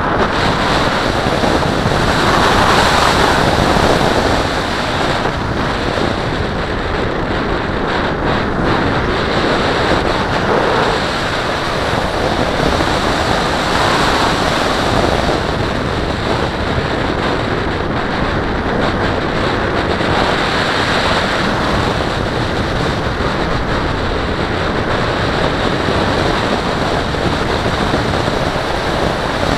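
Wind rushing over the onboard camera's microphone on a 4.5 m Valenta Salto H101 model glider in flight. A loud, steady rushing noise that swells and eases a few times.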